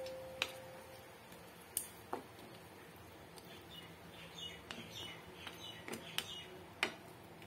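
Faint scattered taps and clicks of a spatula against a nonstick frying pan as whole fish are turned in their gravy.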